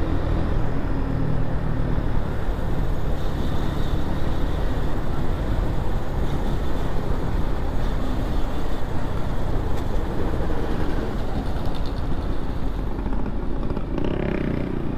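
Motorcycle engine running at road speed, its low note strongest in the first few seconds, under steady wind rushing over the microphone. A brief higher pitched sound comes near the end.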